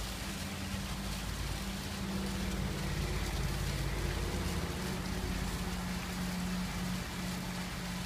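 Water jets of a rock fountain splashing steadily onto stone, over a low mechanical hum.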